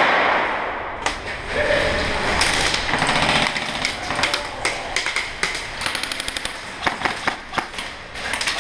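Airsoft guns firing in the concrete corridors of a bunker: bursts of sharp clicking shots and BB hits, coming faster about six seconds in.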